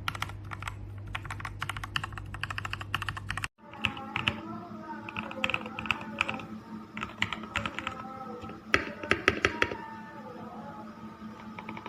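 Rapid typing on a mechanical keyboard with Gateron Milky Yellow Pro KS-3 linear switches, a dense run of key clacks. About three and a half seconds in the sound cuts out briefly, and the typing then goes on over background music.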